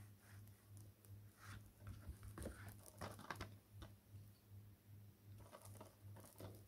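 Near silence: faint scattered clicks and rustles of a plastic DVD case and its cardboard slipcover being handled, over a low hum.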